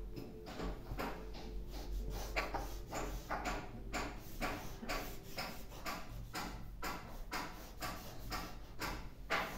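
Marker drawing along a plastic French curve on pattern paper, with the curve and paper shifting on the table: an irregular run of short scraping, rustling strokes, several a second.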